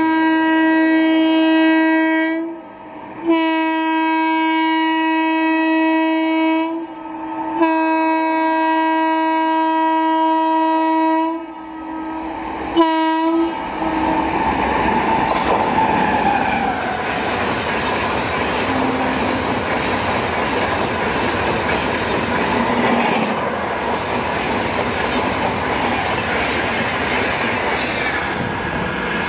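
Vande Bharat Express sounding its horn in three long blasts and a short final toot as it approaches. It then passes at speed with a loud, steady rush of wheel and rail noise.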